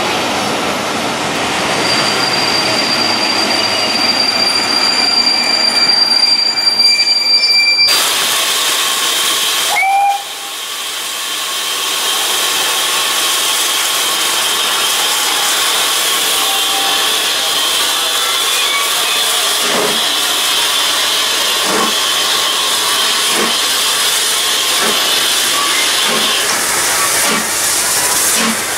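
Railway coaches rolling past with a steady high whine, then the steam locomotive Clun Castle, a GWR Castle class 4-6-0, hissing steam. About two-thirds of the way through, its exhaust beats start, slow at first and quickening as it starts the train away.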